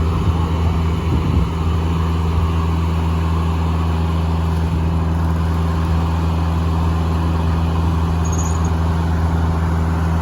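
Engine powering a Foley Belsaw circular sawmill, running at a steady speed with an even, constant low drone and no change in load.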